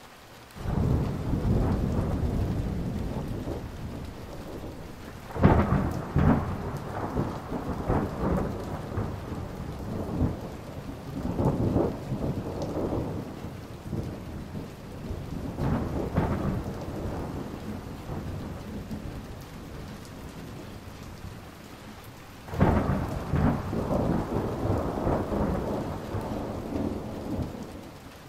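Thunderstorm: rolling peals of thunder over steady rain. A long rumble begins about a second in, a sharp clap comes at about five seconds and rolls on, fainter rumbles follow, and another loud clap near the end rumbles away.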